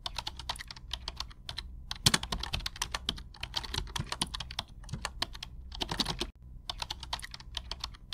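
Computer keyboard typing: a quick, irregular run of key clicks, used as a sound effect while text appears on screen, with a short break a little after six seconds.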